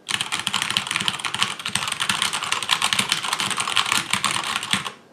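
Typing on a Keychron K4 V2 mechanical keyboard with brown tactile switches: a fast, continuous clatter of keystrokes that stops just before the end.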